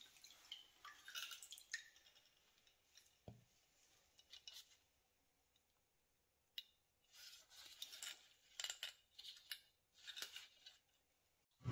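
Faint handling sounds: gloved hands turning a wet metal stove burner, with scattered small clicks and rustles and a quiet gap around the middle.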